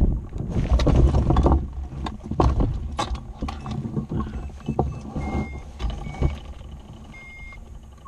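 Wind rushing over the microphone as the hang glider slows, dying away after about a second and a half. It is followed by scattered knocks and rattles of the glider's aluminium frame and base-tube wheels bumping down onto grass, while a few short high beeps sound near the end.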